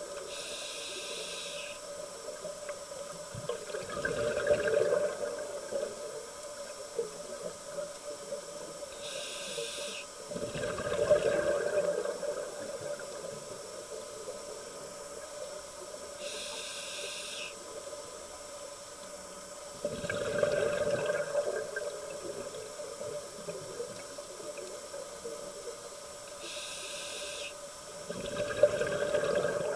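Scuba diver breathing underwater through a regulator: four slow breaths, each a short hiss of inhaling followed a few seconds later by a louder rush of exhaled bubbles, over a faint steady hum.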